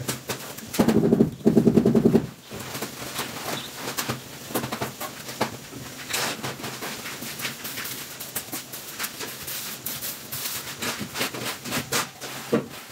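A metal straightedge and hand tools scraping and tapping on wet cement floor screed in irregular strokes. About a second in, a loud, rough, voice-like call sounds twice.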